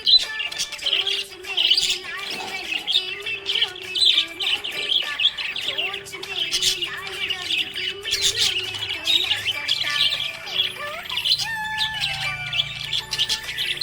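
Budgerigars chirping and warbling: a dense, continuous run of quick, twittering chirps.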